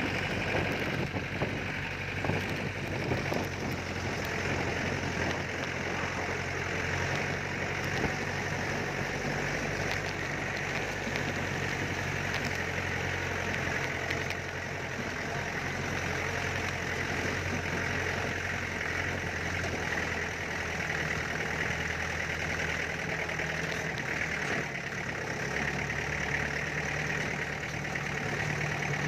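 Mahindra DI diesel engine of a Mahindra jeep idling steadily, heard at its exhaust, with no revving.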